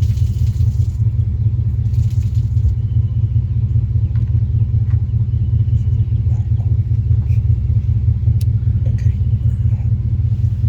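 A steady low rumble throughout, with faint rubbing and a few light clicks from a rag scrubbing the freshly honed cylinder walls with soapy water.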